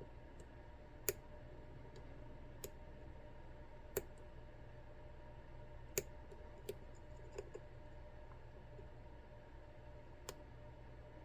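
Lock pick clicking against the side pins of an ASSA Twin 6000 lock as they are picked: about eight short, sharp clicks at irregular intervals over a faint steady hum.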